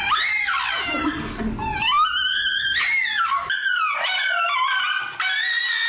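A dog howling and whining in long, high-pitched cries that glide up and down in pitch, one after another.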